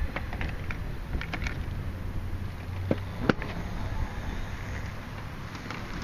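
Wind rumbling on the microphone, with a few light clicks in the first second or so and a sharper knock about three seconds in.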